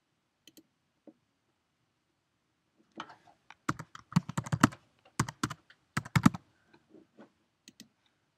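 Computer keyboard typing in quick bursts of keystrokes, beginning about three seconds in and thinning out near the end, after two faint clicks in the first second or so.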